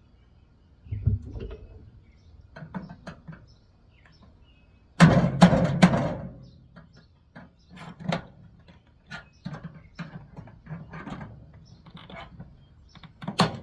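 Irregular clicks, knocks and rattles of hand tools on the plastic and metal parts of a microwave being taken apart to free its control board, with a loud clatter of several knocks about five seconds in.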